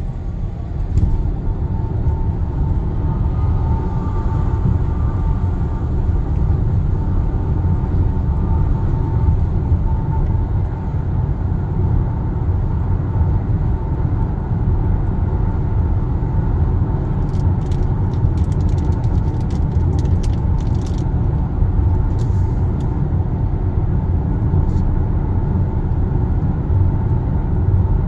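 Steady road and tyre rumble inside the cabin of a Kia Sportage (NQ5) cruising on the expressway at about 95 km/h.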